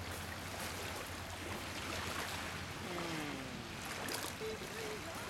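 Steady wash of small waves on a pebble shore. About four seconds in, a thrown stone plunks into the water without skipping.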